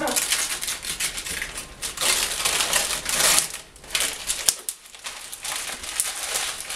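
Gift wrapping paper crinkling and rustling as a present is unwrapped, in uneven bursts with short pauses.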